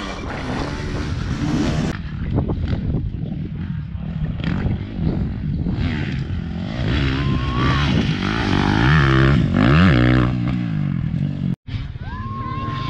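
Dirt bike engines revving on a race course, their pitch rising and falling as the bikes accelerate past, with a spectator's held shout near the end.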